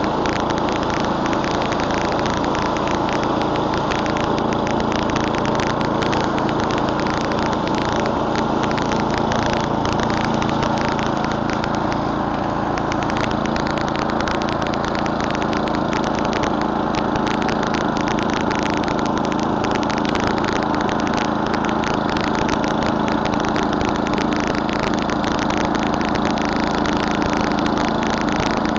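Murray Select snowblower's 11 hp Tecumseh engine running steadily.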